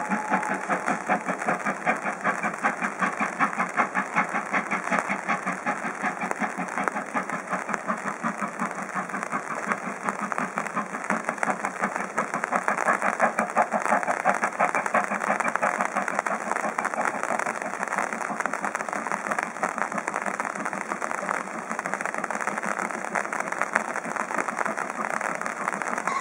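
Steam locomotive working a train away from the station, its exhaust chuffing in a fast, continuous rhythm.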